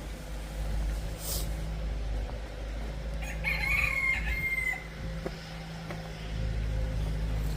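One long, pitched call from a large fowl, starting about three seconds in and lasting about a second and a half, over a steady low hum.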